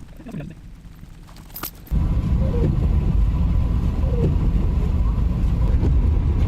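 Faint background for about two seconds with a sharp click, then a sudden switch to a loud, steady low rumble of the van's engine and road noise as it drives.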